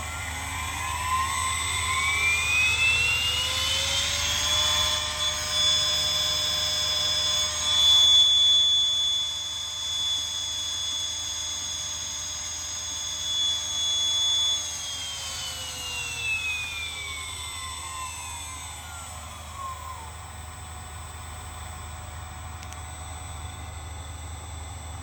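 CNC spindle motor driven by an inverter (variable frequency drive) in a test run after setup: its whine rises in pitch as it spins up over about four seconds, holds at a steady speed for about ten seconds, then falls away as it ramps down to a stop about twenty seconds in.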